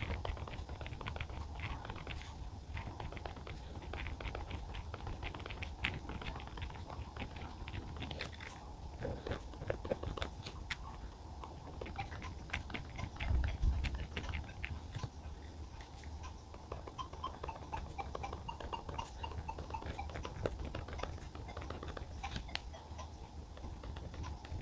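Pen writing on paper by hand: a continuous run of small scratches and taps as the words are copied out.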